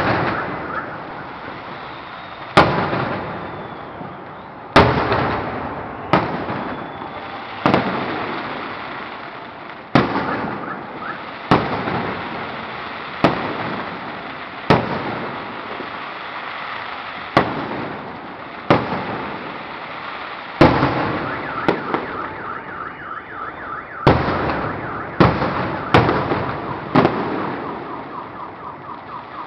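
Festive fireworks salute volleys bursting close by: a sharp boom every one to two seconds, each followed by a long echoing rumble and crackle.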